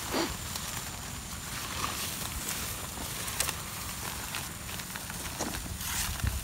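Footsteps brushing through tall grass, with scattered crackles and swishes over a steady low rumble on the microphone.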